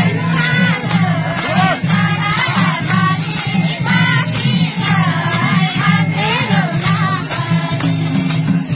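A group singing a folk song over a steady jingling beat.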